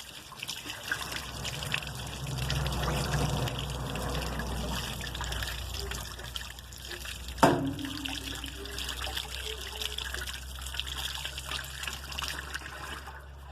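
Water running steadily as a ball is washed under it, with one sharp knock about seven seconds in.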